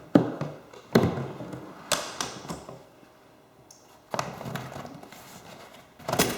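About five knocks and thuds, spaced a second or two apart with a longer gap in the middle, from handling a cardboard box against a recliner's frame.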